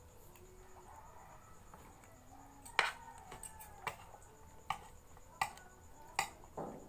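A spoon clinking against a metal plate five times, about a second apart, the first the loudest, with a softer knock near the end. A faint high, steady chirping runs underneath, like crickets.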